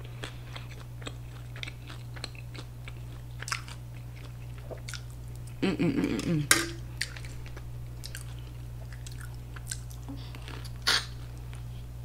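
A person chewing soft shrimp tacos close to the microphone: wet mouth clicks and smacks throughout. A brief voiced murmur comes about six seconds in, followed by a sharp click, with another loud click near the end, all over a steady low hum.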